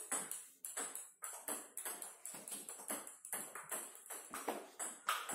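Table tennis rally: the ball clicking back and forth off the bats and bouncing on the table, about three to four sharp hits a second.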